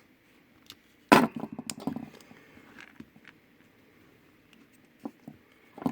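A sharp snip about a second in as a piece of heat-shrink tubing is cut to length, followed by about a second of light rattling and handling clicks, then a few faint ticks.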